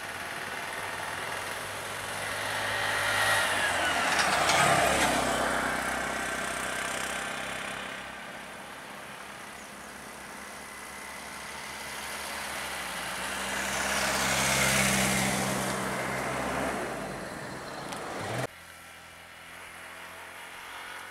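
Motor vehicle engines running on the road, with two vehicles driving past close by, swelling and fading about four and fifteen seconds in, over a steady engine hum. About eighteen seconds in the sound drops suddenly to a quieter engine hum.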